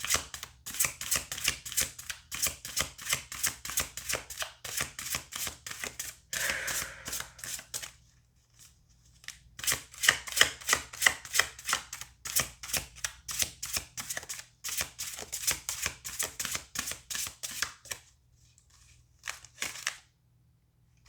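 Tarot cards being shuffled by hand: rapid runs of card clicks, about ten a second, in two long stretches with a short pause between, then a few scattered clicks near the end.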